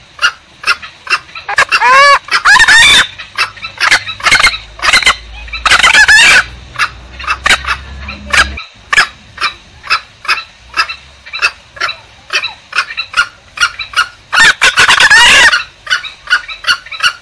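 Green junglefowl lure calls: a steady run of short, sharp clucks, about two to three a second, broken three times by longer, louder calls that bend in pitch.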